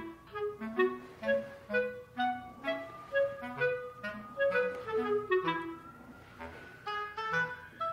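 Background music: a light melody of short, bouncy notes, about two a second, with a few longer held notes in the middle.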